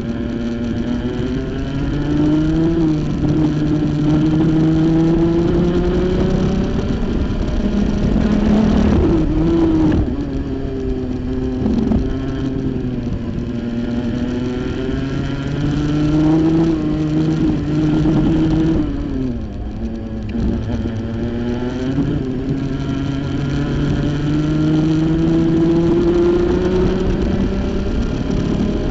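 Rotax 125 Junior Max two-stroke single-cylinder kart engine at racing speed, its note climbing steadily for several seconds at a time under full throttle and dropping sharply when the throttle comes off, most deeply about two-thirds of the way through.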